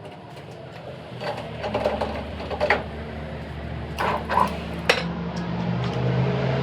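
A workshop machine's electric motor starts up and runs with a steady hum that grows louder toward the end, with several sharp metal clanks.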